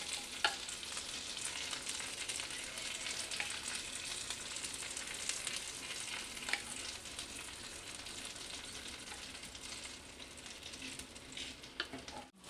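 Egg batter, capsicum and onion frying in mustard oil in a pan: a steady sizzle, with a few sharp clicks scattered through it.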